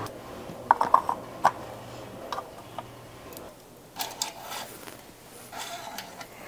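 A few sharp clicks and knocks of parts being handled in the engine bay about a second in, then two short rustles as a shop rag wipes the engine oil dipstick.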